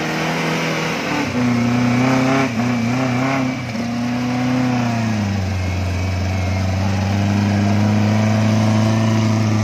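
Off-road jeep engine held at high revs as it claws up a loose, dusty slope on a pulling cable, its wheels slipping in the dust. The engine note wavers for a few seconds, then drops lower about five seconds in and holds steady.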